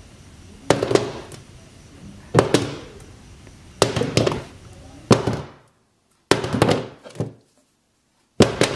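Brass-headed hammer tapping the glass screen of an iPhone 8 Plus: five sharp knocks about a second and a half apart. The glass holds without cracking.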